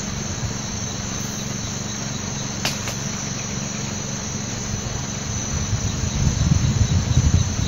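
Steady chorus of insects chirring, with two quick clicks a little under three seconds in and a low rumble growing louder over the last two seconds.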